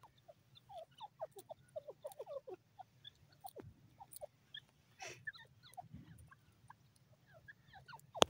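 Grey francolin giving many faint, short chirping notes that slide up or down in pitch, thickest in the first few seconds and then scattered. A single sharp click just at the end.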